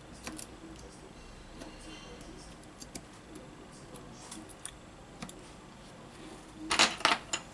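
Light clicks and taps of a Galaxy Note9 mainboard being fitted into the phone's frame by hand. A quick run of louder clicks comes near the end as the board is pressed down into place.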